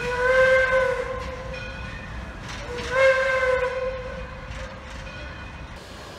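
Steam locomotive whistle blown twice: a blast of about a second, then a second blast about three seconds in that fades away slowly.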